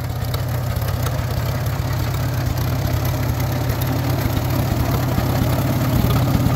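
1944 Farmall A tractor's four-cylinder engine running steadily as the tractor is driven, growing gradually louder as it comes closer.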